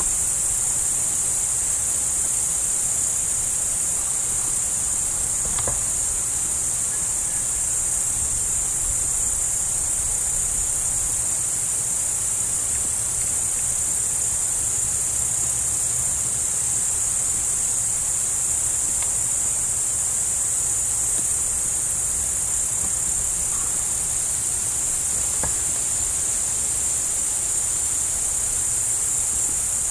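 Crickets chirping in chorus: a steady, unbroken high-pitched trill.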